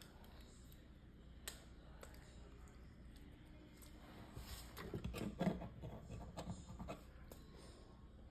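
Small plastic Lego pieces clicking and rattling as they are handled and fitted together: a single click about a second and a half in, then a flurry of clicks between about four and a half and seven seconds in.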